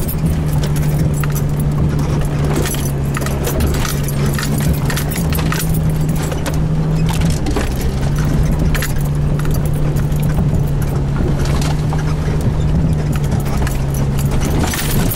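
Four-wheel-drive vehicle's engine running steadily under load in four-high, heard from inside the cab, with frequent rattles and knocks as the vehicle crawls over rocks on a rough trail climb.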